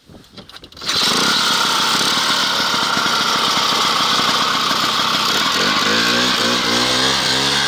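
Two-stroke snowmobile engine starting up loud about a second in and running hard at full throttle, its pitch climbing near the end as it speeds up.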